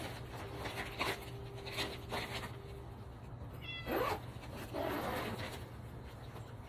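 A pet cat meowing, with its clearest call about four seconds in.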